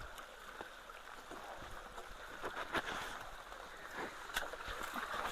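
Water running steadily at a clogged road culvert. A few sharp knocks come from sticks and debris being pulled from the blockage by hand, the clearest nearly three seconds in and just over four seconds in.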